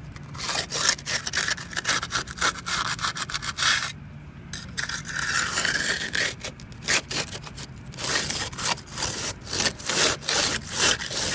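Steel concrete edging tool scraping back and forth along the edge of fresh, wet concrete against a wooden form, in repeated strokes with a short pause about four seconds in. The strokes come quicker over the last few seconds.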